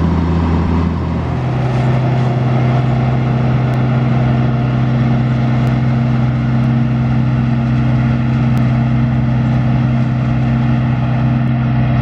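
A farm tractor's diesel engine running, replaced about a second and a half in by the steady engine note of a Claas combine harvester running in the field.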